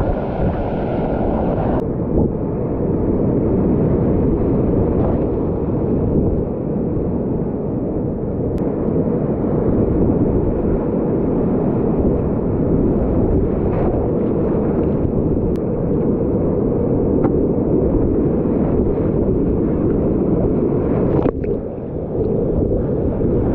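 Whitewater rapids rushing loudly around a kayak: a steady, heavy rush of churning water with a deep rumble in the low end. It turns duller about two seconds in and dips briefly near the end.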